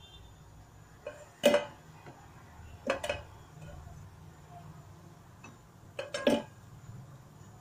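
Perforated steel skimmer knocking and clinking against a frying pan while fried koftas are lifted out of the oil: a few sharp metal knocks, the loudest about a second and a half in, then pairs of knocks around three and six seconds in.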